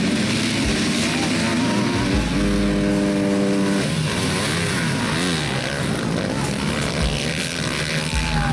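A pack of motocross bikes accelerating hard off the start and into the first turn, several engines revving up and down over one another. About two seconds in, one engine holds a steady note for over a second.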